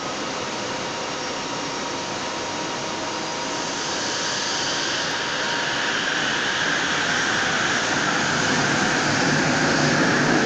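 Bombardier Innovia Metro 300 light-rail train pulling out of an elevated station, running with a steady whir. A mid-pitched whine grows louder through the second half.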